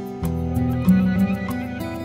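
Instrumental background music with held notes and a regular beat.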